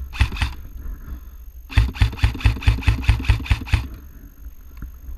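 Airsoft electric gun firing rapid shots, about five a second, a short string ending about half a second in and a longer string of about ten shots from near two seconds in.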